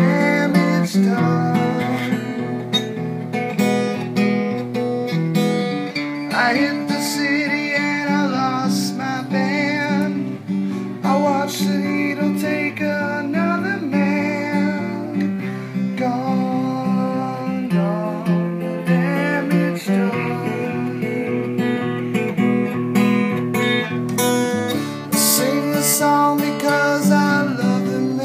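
Acoustic guitar playing a steady picked accompaniment of repeated notes, with a wavering melody line rising above it at times.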